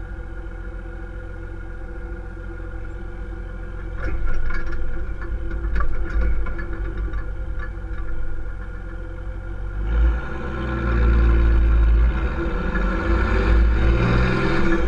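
1992 Toyota HDJ80 Land Cruiser's 4.2-litre turbo-diesel six running through a 2.25-inch exhaust: a steady idle, getting louder about four seconds in as it moves off, then accelerating from about ten seconds in, the engine note rising, dropping and rising again.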